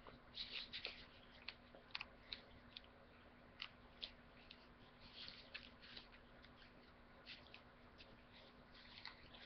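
Faint rustling and crackling of a stack of origami paper sheets being leafed through and fanned by hand, in scattered short crinkles.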